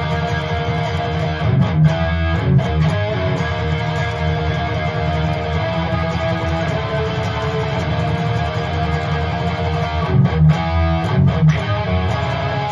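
Les Paul-style electric guitar played through an amplifier: a sustained, full chordal riff, broken twice by short choppy stop-start passages.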